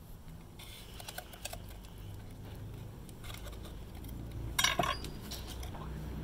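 Knife scraping and clicking against a gaper clam's shell and a bamboo cutting board as the clam meat is cut and pulled free, with a cluster of louder clacks about four and a half seconds in.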